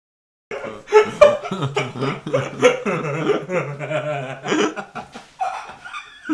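Two men laughing, starting suddenly about half a second in and loudest soon after.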